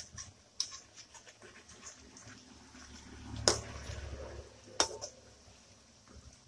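Tapioca sticks frying in hot coconut oil in a metal kadai, a steady sizzle, with a spatula knocking against the pan a few times as they are turned, the loudest knock about three and a half seconds in and another just before five seconds.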